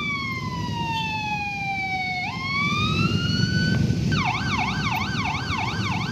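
Police car's electronic siren: a slow falling wail, then a rising one, switching about four seconds in to a fast yelp of about three cycles a second. Steady traffic and motorcycle engine noise runs underneath.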